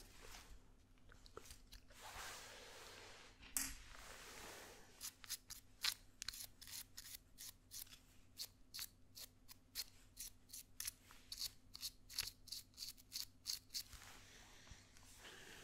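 Barber's hand tool worked close to the microphone, giving quick, sharp snipping clicks about two a second from about five seconds in. A brief swish and a single sharp click come before them, and a faint low hum runs underneath.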